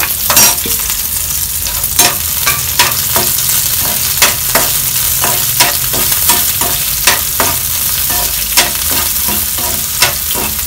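Chopped onion and tomato sizzling in hot oil in a non-stick frying pan, with a slotted metal spoon scraping and clicking against the pan as it stirs, about once or twice a second.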